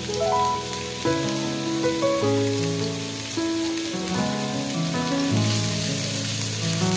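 Chopped garlic and ginger sizzling in a little hot oil in a nonstick pan on a high flame, a steady fine hiss. Background music with held notes that change every half second or so plays over it.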